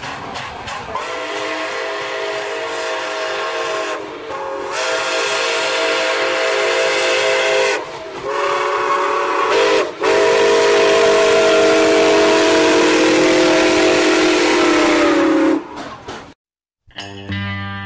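Steam locomotive chime whistle blowing four blasts over a hiss of steam. The last blast is the longest, about five seconds, and its pitch sags as it dies away.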